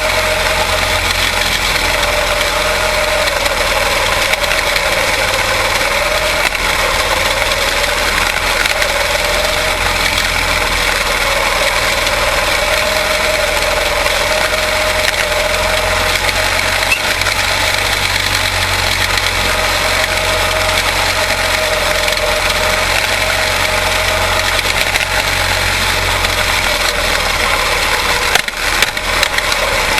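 Quarter midget race cars' small single-cylinder Briggs & Stratton Animal engines running at racing speed, a steady, loud buzz whose pitch rises and falls gently as the cars go around the track. The sound briefly dips near the end.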